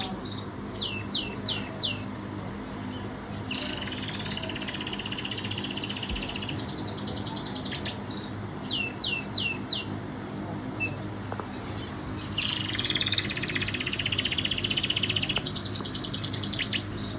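Recorded canary song played back through a phone speaker. The same phrase repeats about every eight and a half seconds: a fast high trill, four quick downward-sweeping whistles, then a lower buzzy trill.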